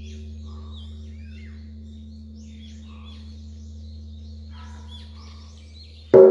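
Large bell's long fading hum after a strike, its tone slowly pulsing, with birds chirping over it. The bell is struck again with a loud clang near the end.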